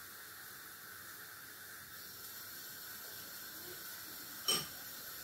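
Oil sizzling faintly and steadily in a frying pan, with a single sharp click about four and a half seconds in.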